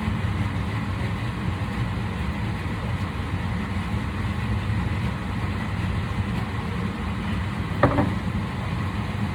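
A steady low mechanical hum runs throughout. A brief sharp sound comes about eight seconds in.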